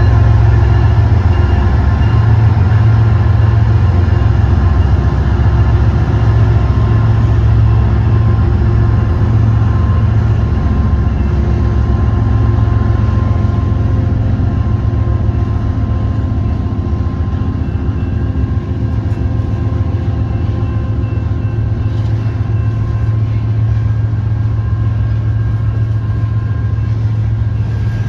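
Diesel locomotive engine running steadily: a low, even hum with a stack of fixed tones above it, getting slightly quieter in the second half.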